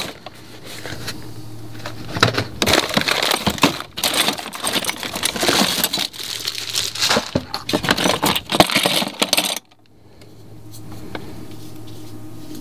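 Small spare parts and plastic packaging clattering and rattling as a hand rummages through a clear plastic storage box. Near the end the rattling stops suddenly and only a low steady hum remains.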